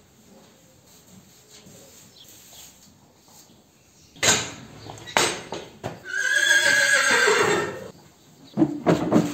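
A horse whinnying once, a loud call of nearly two seconds whose pitch falls. Before it come two sharp knocks about a second apart, and more knocks follow near the end.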